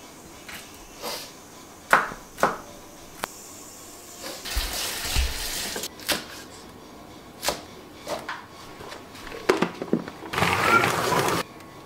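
Santoku knife chopping lettuce on a wooden cutting board, a handful of sharp knocks, with two spells of running water about four seconds in and again near the end, the second the loudest.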